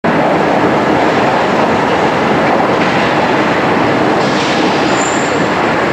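Paris Metro train running past along an underground station platform, with a loud, steady rumble of wheels on rails. A brief, high wheel squeal comes about five seconds in.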